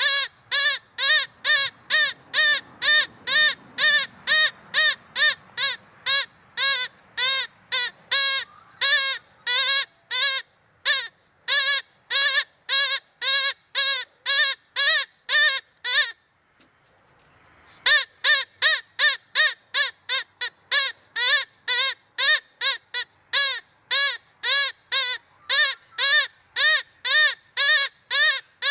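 Rabbit squealing call, a rapid run of short high squeaks, each rising then falling in pitch, about three to four a second, with one brief pause partway through.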